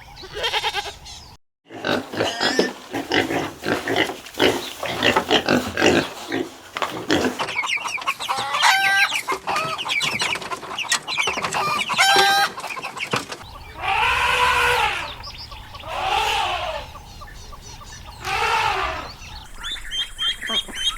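Chickens clucking in a steady chatter of short calls, followed by three long, arching calls from another farm animal.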